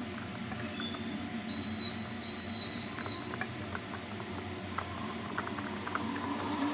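Wooden rolling pin rolling out a stuffed paratha on a floured steel plate: soft rubbing with scattered light clicks, over a steady low hum. Two short high whistle-like tones come between about one and a half and three seconds in.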